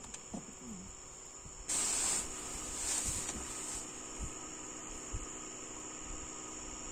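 Steady high-pitched insect drone from the riverside trees, broken by a short loud burst of hiss about two seconds in and a weaker one about a second later.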